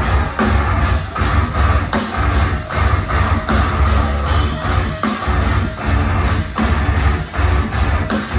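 Death metal band playing live: distorted guitars, bass and drums in heavy, choppy riffs that stop and start, heard from within the crowd.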